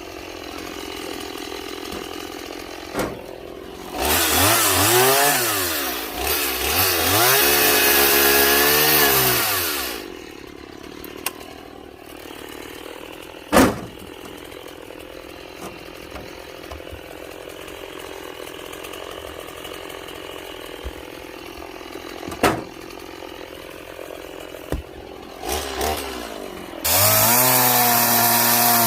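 Stihl MS 170 two-stroke chainsaw running at idle, revved up about four seconds in for several seconds with the pitch rising and wavering as it cuts small wood, then dropping back to idle. Near the end it revs up again and holds a steady high pitch. A few sharp knocks come in between.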